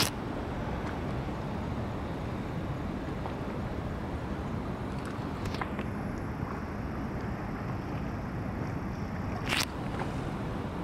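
Steady outdoor rush of city noise, with a sharp click right at the start and a brief louder hiss about a second before the end.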